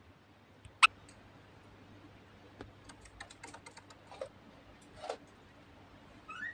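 Pet budgerigars clicking and chirping: one loud sharp click about a second in, a quick run of small clicks in the middle, then a few short chirps, the last one rising near the end.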